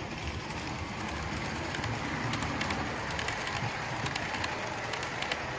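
Model diesel locomotive and its coaches running past on a model railway layout: a steady rumble from the running train, with a quick patter of clicks as the wheels pass over the rail joints, thickest from about two seconds in.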